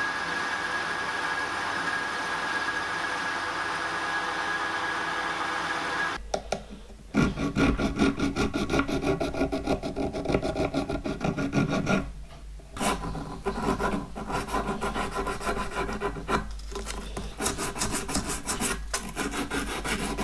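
A machine tool runs steadily with a faint whine; about six seconds in it stops abruptly and is followed by fast, rasping strokes of hand finishing work, a file or abrasive rubbing on the metal throttle shaft.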